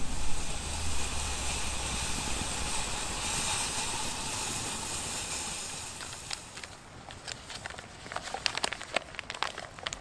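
Wood campfire hissing steadily, with a metal pot set in its glowing embers. About six seconds in the hiss fades and scattered sharp crackles and clicks follow.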